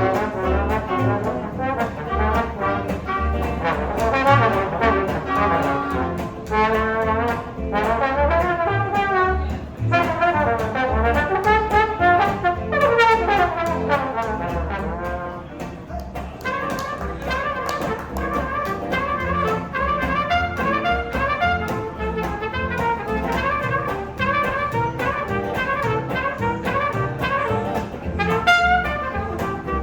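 Live jazz band playing, with trumpet and other brass horns carrying the melody over a steady beat.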